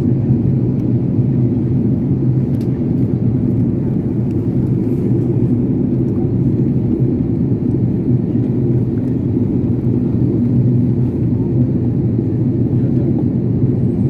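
Airliner cabin noise in flight: a steady, even low drone of jet engines and airflow, unchanging throughout.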